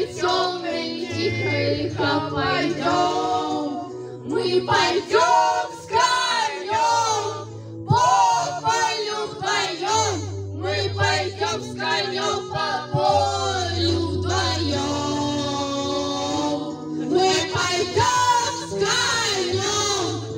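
Karaoke: two women singing into handheld microphones over a loud backing track with a steady bass line.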